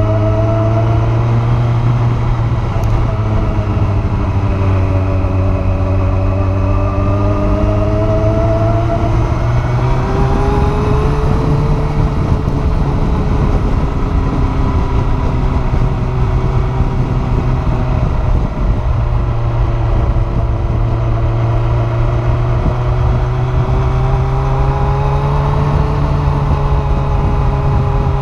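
Kawasaki ZZR1400 (Ninja 1400) inline-four engine heard from the rider's seat while cruising, its pitch sliding gently down and up with the throttle several times, over a steady rush of wind noise.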